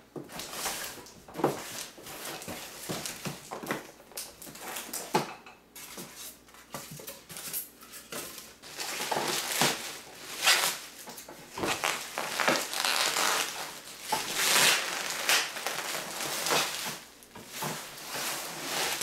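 A cardboard box being unpacked by hand: flaps and styrofoam packing blocks scraping and knocking, then bubble wrap rustling and crinkling as a wrapped item is pulled out. The rustling gets busier about halfway through.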